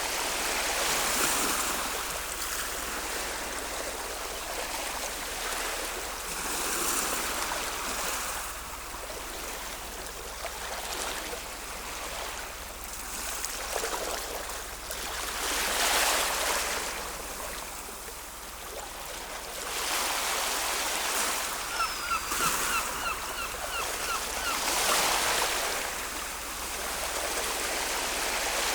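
Ocean waves surging and washing ashore, swelling and ebbing every few seconds. About three quarters of the way through there is a short run of quick, high chirps.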